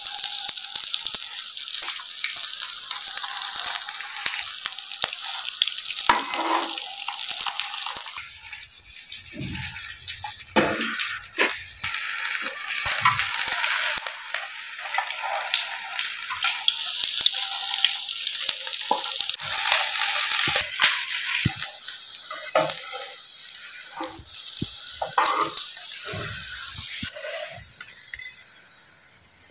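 Shami kababs frying on a tawa griddle: a steady sizzle as they turn golden.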